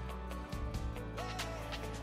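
Background music: an instrumental stretch of a pop song with a steady beat.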